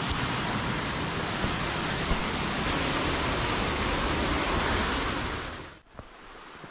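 Steady rush of flowing water, like a gorge stream or waterfall, that cuts off abruptly near the end.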